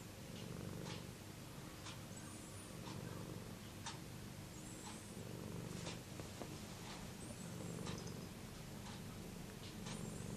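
Domestic cat purring steadily, a continuous low, rapidly pulsing rumble. Faint clicks and a few short, high chirps come in over it every couple of seconds.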